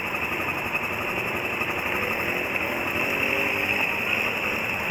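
Quad (ATV) engines running steadily at low revs as the quads idle and creep along a dirt trail.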